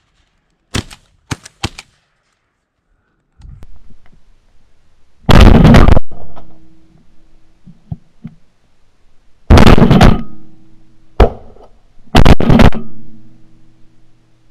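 Shotgun shots fired at a flock of pigeons: a few quick, quieter sharp reports in the first two seconds, then loud blasts about five, nine and a half and twelve seconds in, with a sharp shot just before the last.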